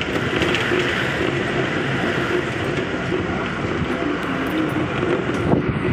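Steady running noise heard from inside a moving road vehicle with its window open: the engine running under the rush of wind, with a few faint clicks and rattles.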